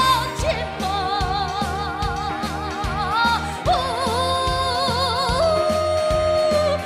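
A woman singing the climax of a Korean trot ballad, holding high notes with a wide vibrato over band accompaniment with a steady drum beat.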